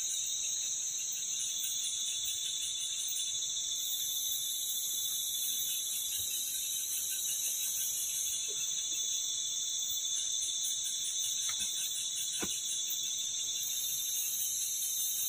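Dense night chorus of insects: a steady, high-pitched shrill trill with a fast pulsing texture that swells and eases slowly. A couple of faint clicks come about two-thirds of the way through.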